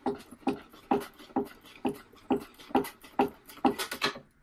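Old wooden chair's loose, woodworm-eaten joints creaking and knocking as the chair is rocked back and forth, about two short creaks a second.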